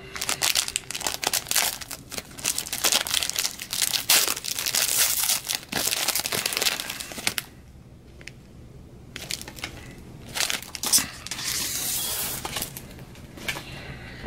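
Foil wrapper of a basketball trading-card pack being torn open and crinkled in the hands: dense crackling for about seven seconds, a short lull, then more crinkling.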